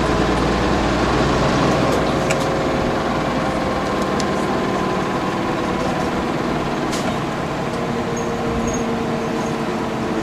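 Mitsubishi Fuso QKG-MP38FK city bus heard from inside, its diesel engine and drivetrain running with a steady whine. The low rumble eases about two and a half seconds in, and there are a few light clicks.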